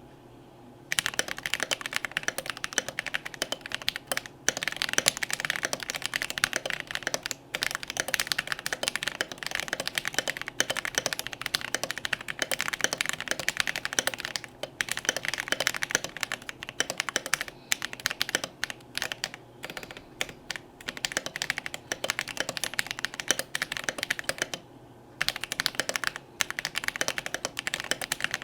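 Fast touch-typing on a Melody96 mechanical keyboard with Holy Panda tactile switches, a brass plate and thick PBT double-shot OSA-profile keycaps: a rapid, continuous run of keystrokes. It starts about a second in, with short breaks between bursts and a longer pause of about a second near the end.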